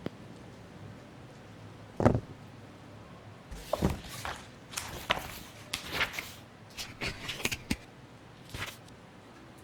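Unboxing handling sounds of a phone and its packaging: one sharp thud about two seconds in, then a run of short taps, clicks and rustles.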